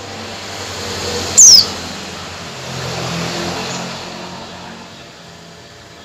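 Female white-eye (pleci) giving a single loud, sharp call that falls steeply in pitch, about a second and a half in. A low background rumble swells twice beneath it.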